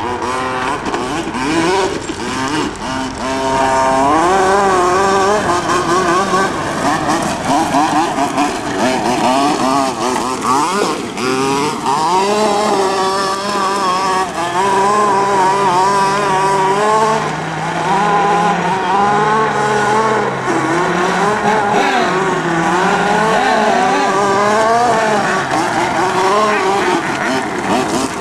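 Small two-stroke engine of a radio-controlled monster truck running at speed, its pitch rising and falling over and over as the throttle is worked.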